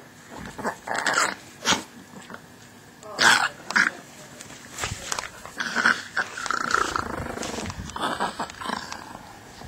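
Chihuahua and German shepherd puppies play-fighting, growling in a series of short bursts, the loudest about three seconds in.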